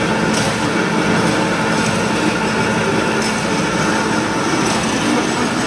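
Ribbed wire making and straightening-cutting machine running steadily: a loud, even mechanical whirr with several steady tones through it, and a faint tick about every second and a half.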